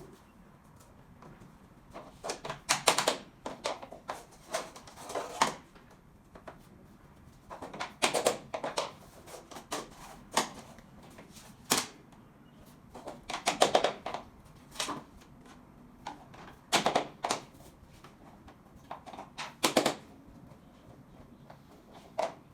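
Irregular bursts of sharp taps and knocks from SPC stone-plastic floor planks being handled and fitted together, in clusters of several quick clicks with short gaps between them.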